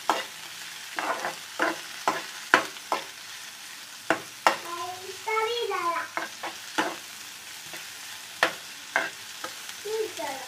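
Chopped onion frying in hot ghee in a pan with a steady sizzle, while a spoon stirs it, clacking and scraping against the pan at irregular intervals. The onion is being softened gently, not browned.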